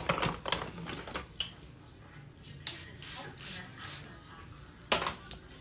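A handheld spray bottle spritzing a fine mist onto the face in several short hisses: a few at the start, a cluster about three to four seconds in, and one more near the end.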